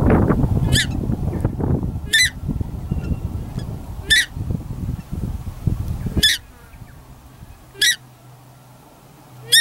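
Paradise shelduck giving short, high-pitched honking calls, repeated about every one and a half to two seconds. Under them is a low rumbling noise that stops about six seconds in.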